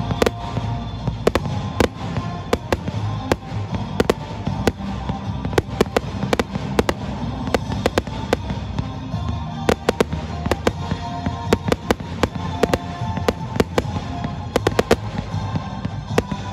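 Aerial firework shells bursting, many sharp bangs a second in an uneven, continuous barrage, with music playing under them.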